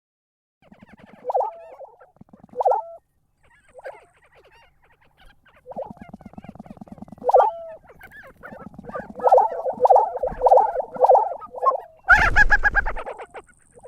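An animal calling: a string of rapid, rattling pulsed calls, ending in a louder, harsher call near the end.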